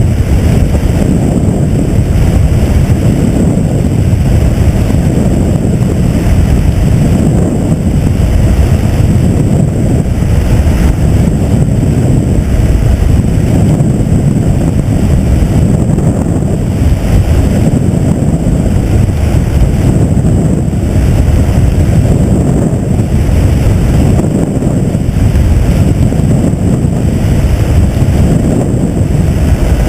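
Helicopter noise with heavy wind buffeting the microphone: a loud, steady, unbroken rumble.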